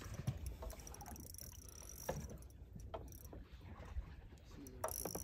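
Faint sounds aboard a small boat at sea: a low, steady rumble with a few soft knocks scattered through it.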